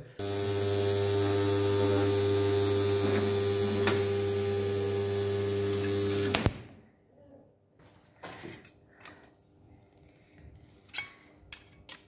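Spot welder built from a microwave-oven transformer, powered up: a loud, steady, deep mains hum with a hiss over it and one sharp crackle about four seconds in. It cuts off suddenly at about six and a half seconds, after which only a few faint clicks and knocks are heard.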